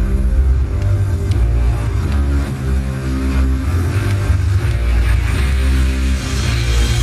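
Music with low held chords over a heavy bass, the chords changing every second or so.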